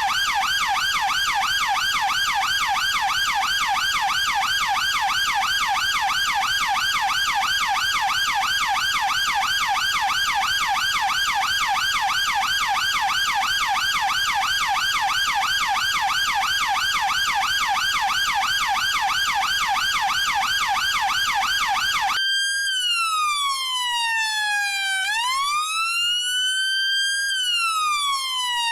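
British police car siren on a fast yelp, pitch warbling up and down several times a second. About three-quarters of the way through it switches to the slow wail, gliding down, back up, holding and falling again over a few seconds each sweep.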